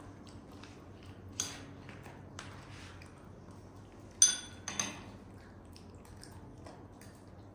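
Spoon clinking against a bowl: a few light taps and scrapes, then two ringing clinks about four and five seconds in, the first the loudest.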